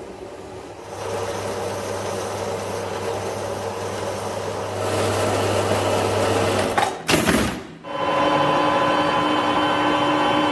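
A metal-cutting bandsaw running with a steady hum while it cuts a stainless steel bar, then a loud burst of noise about seven seconds in. After that a Harrison lathe spins the stainless stock with a steady, several-toned whine.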